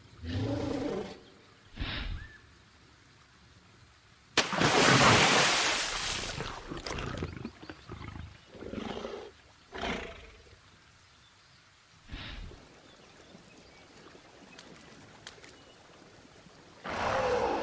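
Cartoon dinosaur sound effects: a string of short growls and roars with quiet gaps between them. A longer, louder, noisier burst starts sharply about four seconds in and fades over a few seconds.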